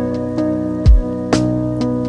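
Background music: held chords over a steady beat of low drum thumps and sharp percussion hits.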